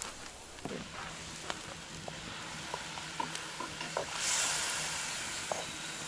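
Goulash sizzling in a dutch oven over an open campfire, with scattered light clicks. About four seconds in, a louder hiss begins and holds.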